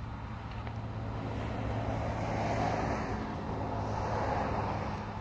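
Steam locomotive 5910, a 2-8-2, working hard under load with a cement train: a steady rushing exhaust over a low hum, swelling louder twice.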